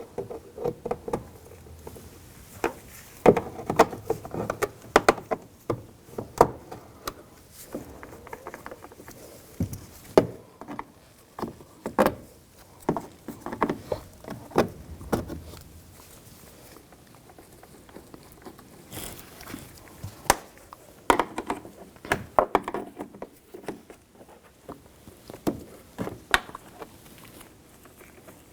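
Irregular clicks, taps and plastic clatter of hand work on a Ram 1500 pickup's interior door panel: push-pin clips being twisted out with a T20 socket and popped loose with a plastic trim tool, coming in clusters of sharp clicks with short pauses between.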